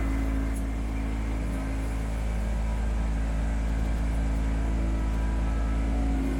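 Kubota B2650 tractor's three-cylinder diesel engine running steadily.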